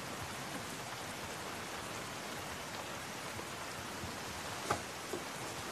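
Steady rain falling, an even hiss, with one brief sharper tick about three-quarters of the way through.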